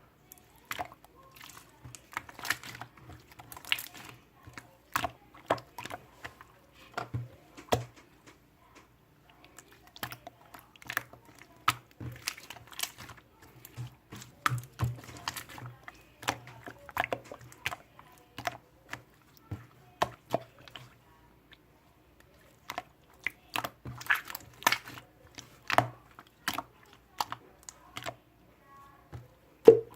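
Irregular clicking and tapping, many short sharp clicks at an uneven pace, over a faint low hum.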